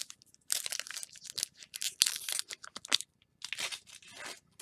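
A Pokémon booster pack's foil wrapper being torn open and crinkled by hand: a run of quick rips and crackles for about two and a half seconds, then another shorter burst of crinkling about a second later.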